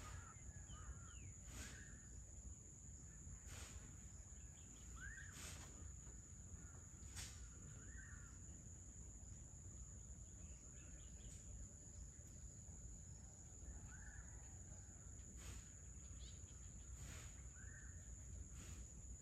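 Faint evening ambience over forest: birds give short calls every few seconds over a steady high insect drone, with a few brief clicks and a low background rumble.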